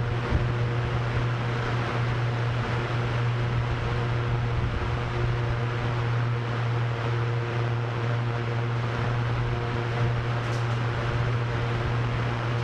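Drone propellers spinning steadily: a constant low hum with a few fainter higher tones, mixed with rushing wind.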